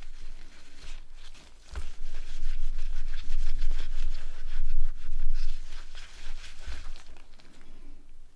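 Rubbing, scraping and small clicks of hands working on the parts of a disassembled phone, with dull knocks on the work surface; loudest in the middle stretch.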